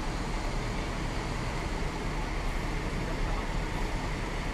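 Large coach's engine running steadily at low speed as it pulls into a bay, over a constant low rumble of traffic noise.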